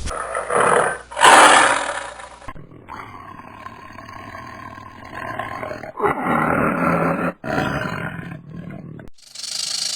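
A run of loud wild-animal roars and calls cut one after another, with a long held, pitched call in the middle; near the end it switches abruptly to a different steady sound.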